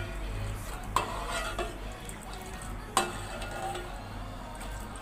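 Steel ladle stirring milk in a steel pot, knocking against the side of the pot with sharp clinks about a second in and again about three seconds in.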